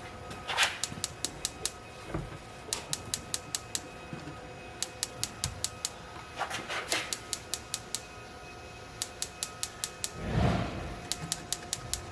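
Norcold N621 RV refrigerator's spark igniter ticking in runs of several ticks a second while the LP gas burner fails to light: the igniter wire has been left unhooked, so there is no spark at the burner. A rustling, handling-type noise comes about ten seconds in.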